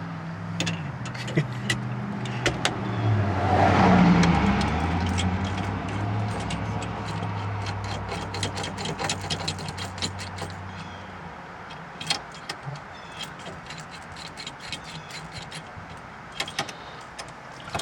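A motor vehicle's engine hum that swells about four seconds in, then fades away, under a scatter of sharp metallic clicks and taps from hand tools.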